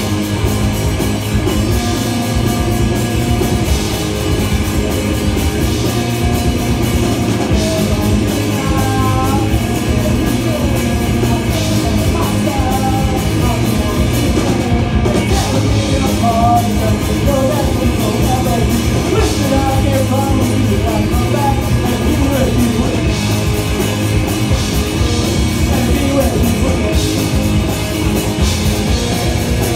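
Live pop-punk band playing loud: distorted electric guitar, bass and drum kit, with a lead vocal coming in about eight seconds in and singing over the band.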